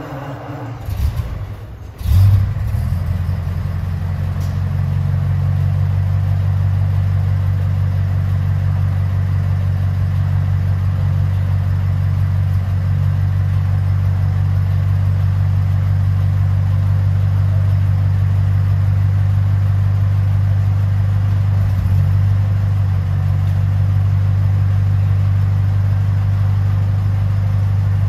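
1934 Packard Eight's straight-eight engine on a cold start: it fires unevenly and catches with a loud burst about two seconds in, then settles into a steady, even idle heard at the exhaust tailpipe.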